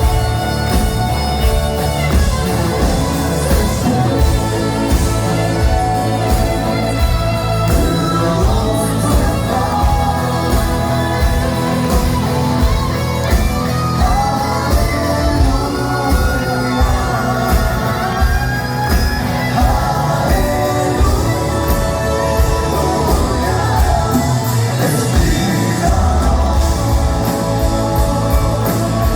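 Live rock band playing a song with singing over a steady drum beat and guitars.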